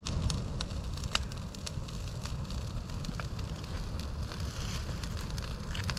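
Brush pile of old Christmas trees burning: irregular sharp crackles and pops over a steady low rumble.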